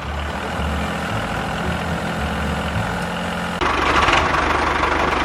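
Vehicle engine idling steadily with a low hum. About three and a half seconds in, a higher-pitched layer joins and the sound gets louder.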